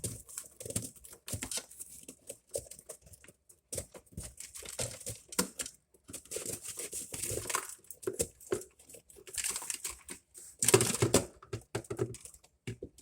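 Hands crinkling and tearing away wrapping from a messy wiring bundle inside a refrigerator, with irregular scrapes and clicks and a louder rip about eleven seconds in.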